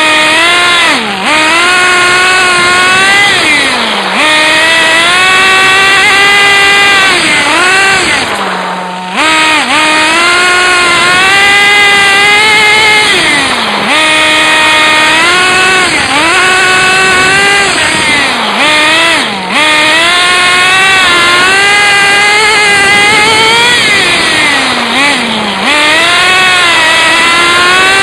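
Radio-controlled car's small high-revving engine, heard up close from a phone strapped to the car, revving up and dropping back over and over as it is driven, settling briefly to a steady idle about eight seconds in before revving again.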